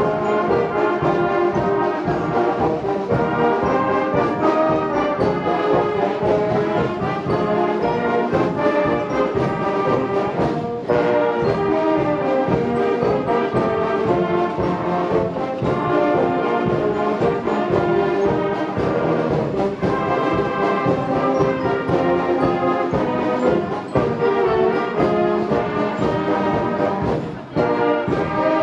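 Massed brass bands playing a piece together: trumpets, trombones, horns and tubas, with short breaks between phrases about eleven seconds in and near the end.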